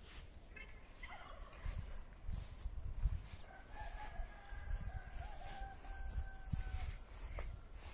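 A rooster crowing faintly, with a few short calls followed by one long drawn-out crow in the middle. Under it are footsteps swishing through long grass and a low rumble of wind on the microphone.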